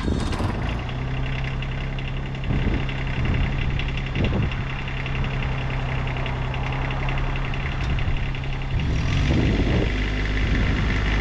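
Tractor engine starting up and running steadily. About nine seconds in its note changes and it gets louder.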